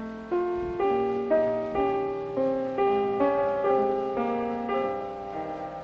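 Background music: a slow, gentle piano melody, single notes struck about twice a second and left to ring.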